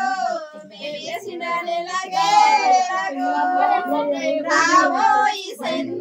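A high voice singing a song in long held notes, with no instruments.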